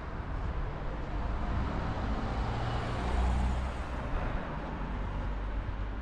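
A car driving past on the street, its engine and tyre noise swelling to loudest about three seconds in, then fading, over steady background traffic.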